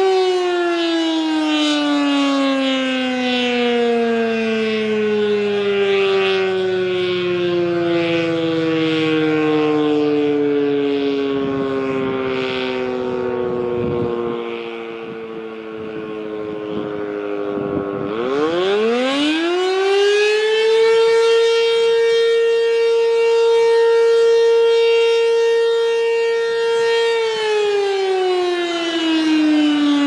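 ACA Banshee 115 electromechanical outdoor warning siren sounding the attack signal. Its pitch falls slowly for most of the first half, winds sharply back up, holds steady for several seconds, then starts falling again near the end.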